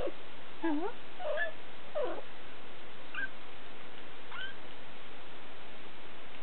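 Three-week-old Siberian kittens mewing: about six short, high calls that bend up and down in pitch, the later ones fainter, over a steady hiss.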